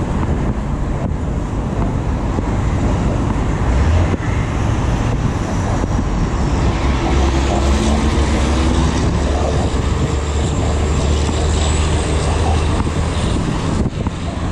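Steady road traffic noise from cars on the lanes beside the bridge cycleway, heard while riding.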